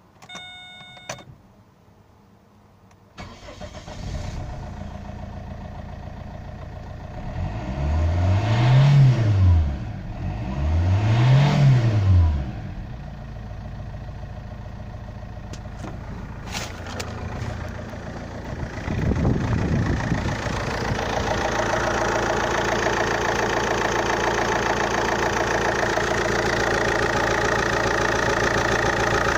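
A short chime, then the Opel Vectra C's 1.9 CDTI (Z19DTH) four-cylinder turbodiesel starts about three seconds in and settles to a steady idle. It is revved briefly twice, each rev rising and falling, and then idles on. In the last part the idle is heard louder, close to the engine at the open oil filler neck.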